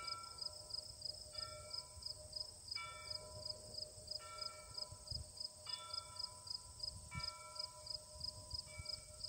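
Insects chirping in a fast, even pulse of about four chirps a second over a steady high buzz. Faint held tones come and go about every second and a half.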